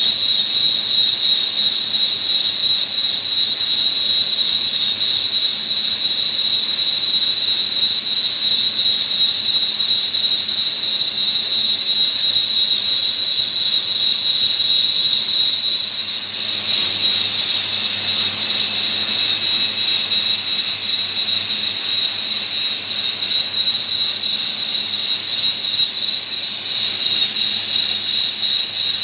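Lathe turning a workpiece, the cutting tool giving a steady high-pitched squeal over the machine's running noise. A little past halfway the squeal changes tone slightly and gets a bit quieter.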